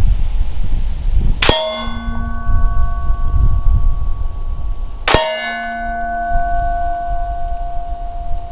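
Steel target plate hit twice by pistol rounds from a Glock 21, about three and a half seconds apart. Each hit is a sharp crack followed by a long metallic ringing clang that slowly fades.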